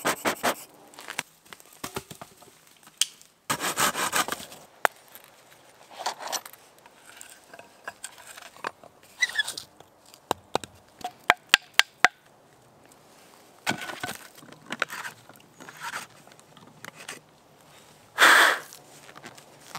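Wood being worked by hand: scraping, crunching and a run of sharp clicks as a spiral auger bit bores into a log. Near the end comes a short strong breath, blowing sawdust out of the drilled hole.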